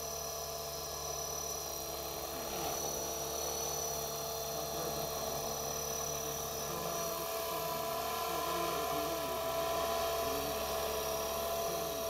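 Align T-Rex 500 electric RC helicopter in flight: a steady high motor-and-gear whine with several held tones over the whir of the rotor blades. It grows a little louder in the later part, with a slight waver in pitch.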